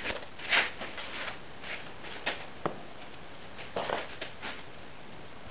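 Moulding sand being scooped from a plastic tub and dropped by hand into a metal moulding flask: a scattered series of short rustles and soft taps, the loudest about half a second in.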